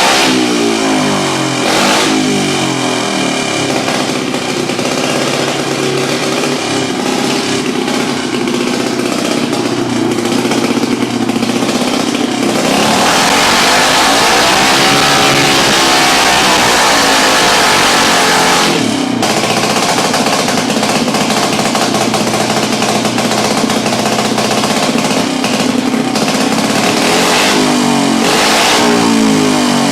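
Single-cylinder race engine running on a dyno during break-in. It holds a steady speed, is run up louder with its pitch climbing and falling back over about six seconds midway, then settles, and starts rising again near the end.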